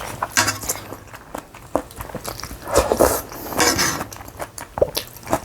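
Eating sounds from a meal of janchi guksu noodles and beef rice balls: several short, irregular bursts of slurping and chewing, with a few light clicks between them.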